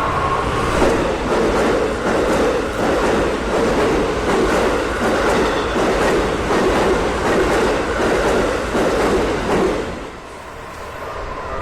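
A train passing over a railway level crossing, its wheels clattering over the rail joints in a steady rhythm. The train noise falls away near the end, and the crossing's warning bell can be heard again.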